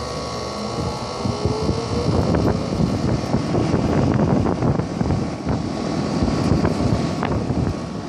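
Condenser fan of a 2010 Carrier 3-ton central air conditioner's outdoor unit (Genteq fan motor) starting up over the hum of the Copeland scroll compressor. A rising whine comes in the first couple of seconds, then a steady rush of air that buffets the microphone. This is part of a fault in which the fan keeps switching on and off while the compressor runs.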